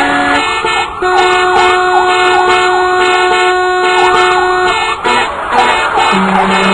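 Loud street traffic with several vehicle horns blaring together in a long held blast that stops about five seconds in, then more honking over the traffic noise.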